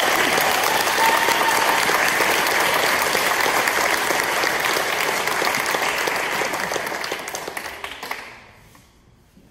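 Audience applauding, dying away about eight seconds in.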